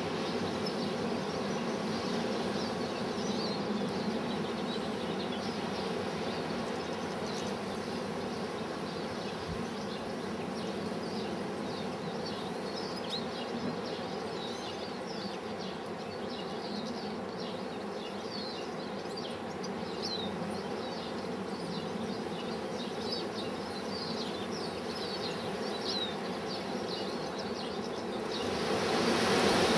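Strong wind rushing steadily, with many short high chirps of small finches twittering over it. The rushing grows louder near the end.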